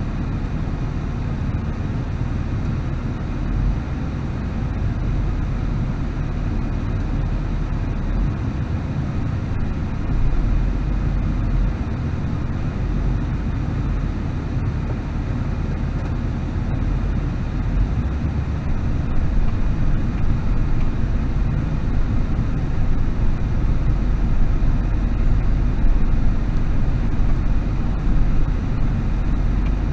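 Car engine and tyre rumble heard from inside the car, driving slowly over an unpaved dirt road. A steady low rumble that gets a little louder in the second half.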